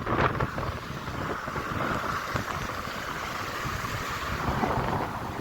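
Strong wind buffeting the microphone over the steady wash of small sea waves breaking on a beach.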